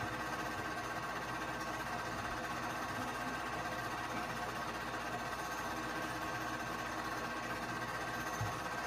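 Keystone K-502 8mm movie projector running steadily, its motor and film mechanism making a continuous mechanical hum with a couple of held tones. A soft low knock comes near the end.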